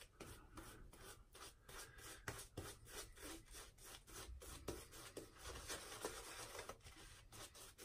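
Faint, soft rubbing strokes of a badger-hair shaving brush worked over a lathered face, about three strokes a second. The brush is face-lathering a thin, watery shaving soap lather that holds too much water.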